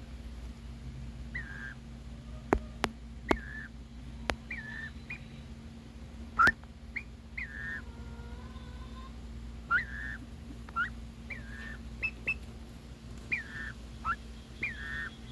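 Pet turkeys calling: a string of short, high chirps and peeps, some sliding down in pitch and some sliding up, repeated every second or so. A few sharp clicks come in the first few seconds.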